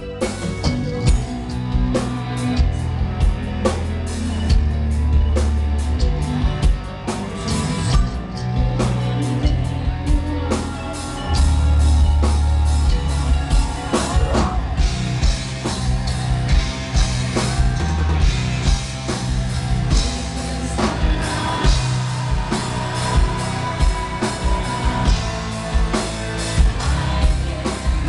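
Gothic metal band playing live: drum kit hitting steadily, distorted guitars and bass, and a woman singing lead.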